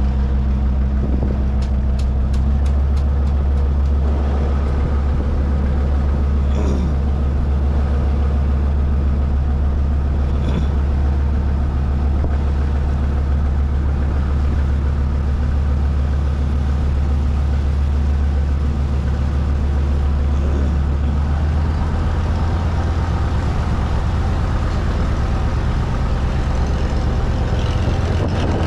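Engine of a boat cruising on a river, a steady deep drone; the engine note shifts slightly about three-quarters of the way through.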